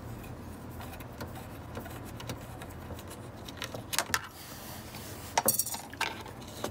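Sections of a fiberglass wire-running rod being handled and unscrewed at their brass joints as the rod is pulled back out: light clicks, then short metallic rattles about four seconds in and again near the end, over a faint low hum.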